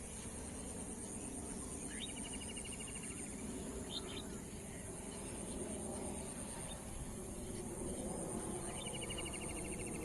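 Evening outdoor ambience: a steady, high, pulsing insect chorus, with a bird twice giving a quick upward note followed by a rapid trill, and a few short chirps in between, over a low background rumble.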